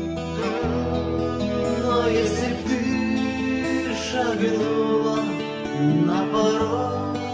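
Acoustic guitar playing chords with a voice singing a melody over it.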